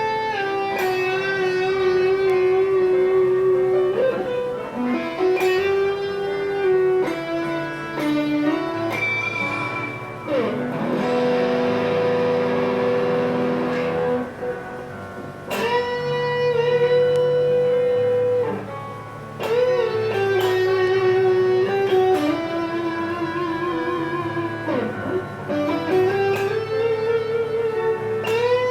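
Electric guitar, a PRS SE Custom on its neck pickup through a Mesa Rectoverb 25 tube amp, playing a melodic lead line of long sustained notes with vibrato, slides and bends, over lower accompanying notes.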